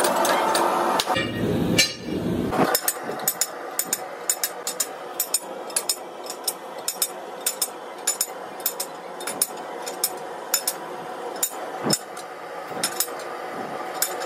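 Sharp metallic clicks and taps from hand tools working on a steel tyre-spreader clamp, irregular at about two a second, starting a few seconds in; before that a steady machine noise runs and stops.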